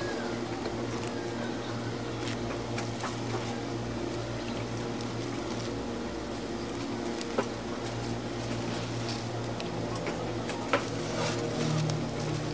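Steady low mechanical hum of a large store's background, with a few faint clicks and handling noises, the clearest about seven and eleven seconds in.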